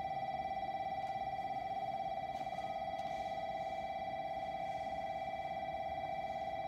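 Station platform train-passing warning bell ringing continuously with a steady, rapid trill, warning that a train is about to pass through without stopping.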